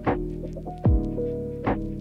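Lo-fi hip-hop background music with a slow beat: a deep kick and a snare alternate, one hit about every 0.8 seconds, over sustained chords.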